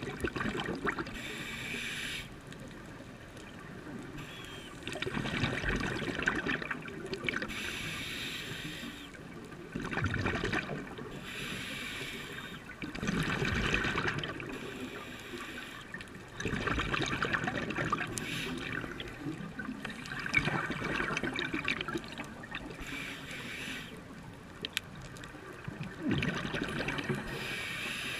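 Scuba diver breathing through a regulator underwater: bursts of exhaled bubbles gurgling out about every three seconds, with quieter stretches between breaths.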